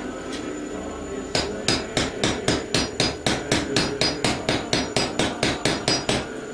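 Hammer driving a wheel bearing into a mini bike hub through a seal installer: a fast, even run of about twenty sharp metal-on-metal taps, roughly four a second, starting about a second in.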